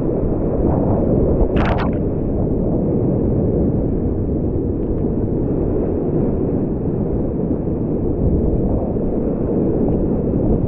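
Whitewater rapids rushing around a kayak: a steady, dull, low rush of churning water, with a short sharper splash about two seconds in.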